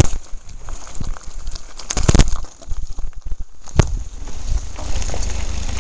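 Mountain bike rolling fast over a loose gravel track, with wind buffeting the microphone and a steady rumble and rattle, broken by sharp knocks as the bike jolts over bumps, a quick cluster about two seconds in and another near four seconds.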